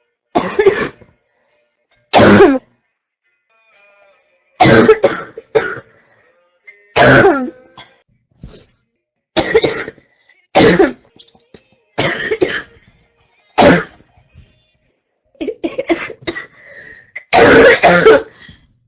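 A sick girl's harsh barking cough, coming in loud, short fits about every one to two seconds, some as single barks and some as quick doubles or clusters of three.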